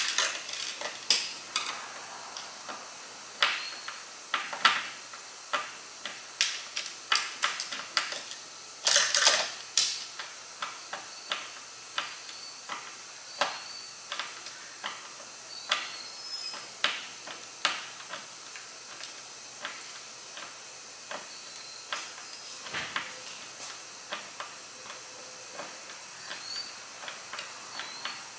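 A Phillips screwdriver driving screws by hand into a kayak bow mount: irregular sharp clicks and taps of metal on the screw heads and hardware, with a quicker flurry about nine seconds in, over a steady hiss.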